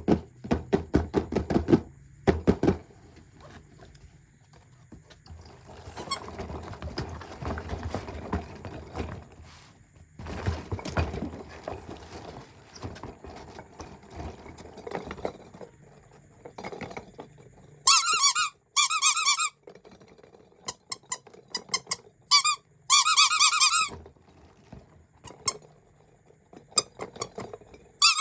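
Squeaky cat-shaped squeeze toy being pressed: several loud, wavering squeaks in the second half, one held for about a second. Before them come rapid clicking and a stretch of soft rustling.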